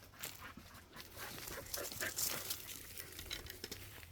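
A spaniel panting in a quick, irregular run of short breaths.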